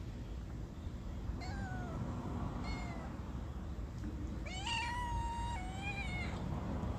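Street cat meowing three times: two short meows, then a longer, louder meow about four and a half seconds in that lasts nearly two seconds. A steady low rumble runs underneath.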